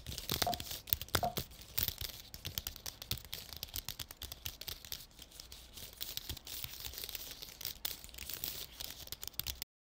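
Modelling clay being worked by hand and with sculpting tools: a dense run of small scrapes, crackles and taps as clay is pressed, pulled and carved. It cuts off suddenly near the end.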